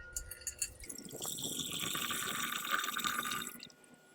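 A few light clicks of glassware, then liquid pouring steadily for about two and a half seconds, stopping about half a second before the end.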